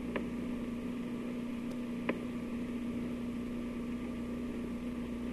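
Steady electrical hum and hiss on an old 1950s recording's soundtrack, with two faint clicks, one just after the start and one about two seconds in.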